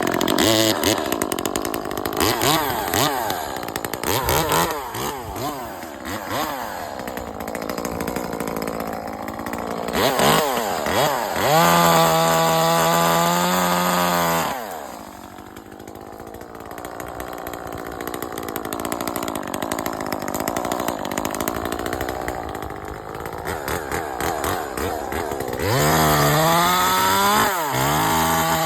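Small gas chainsaw cutting branches off a birch, revving up and down. It holds full throttle for a few seconds about twelve seconds in, drops back to a lower run, and revs to full throttle again near the end.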